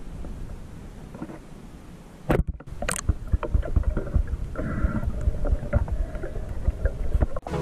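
Underwater audio through an action camera: a steady low water rumble with many short, sharp clicks and knocks as hands handle a speared tilapia on the spear shaft and string it on a line. A brief break in the sound about two and a half seconds in.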